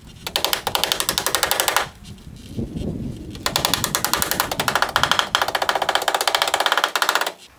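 A nailing tool hammering rapidly, machine-like, in two bursts: about one and a half seconds, then after a short pause about four seconds, driving a couple of nails through folded fascia trim.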